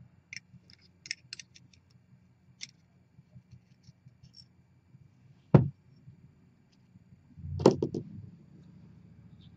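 Faint metallic clicks and scrapes of a steel pick tool digging the Belleville spring pack out of a paintball HPA tank regulator's bonnet. A single sharp knock comes about five and a half seconds in, and a louder cluster of knocks a couple of seconds later.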